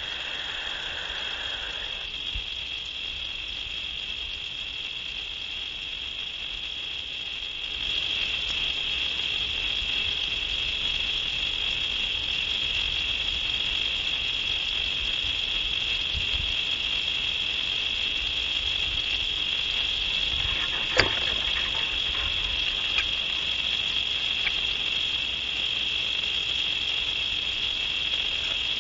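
Steady, unbroken chorus of night-singing insects at one even high pitch, stepping up slightly in loudness about eight seconds in. A single sharp click comes about 21 seconds in.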